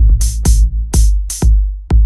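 Electronic dance music with a drum-machine beat: a heavy kick about twice a second, with sharp, bright hits between the kicks.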